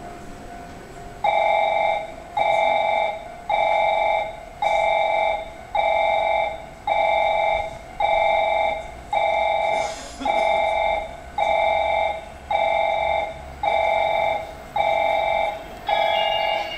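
Station platform train-approach warning sounding: a loud electronic beep repeating about once a second, each beep held for most of that second. It is the alert that a train is about to enter the platform. Near the end, higher tones join in as the train draws near.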